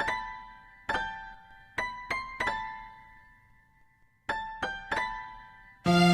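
Phone ringtone: a melody of bell-like electric-piano notes, mostly struck in groups of three, each ringing out and fading, with a pause before the phrase repeats. Near the end, a louder, fuller piece of music cuts in.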